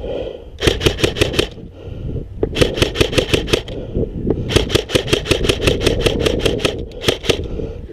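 Electric airsoft rifle, an ICS CXP MARS SBR, firing close by in four strings of rapid shots, each a sharp click at about six or seven a second, the longest string in the middle.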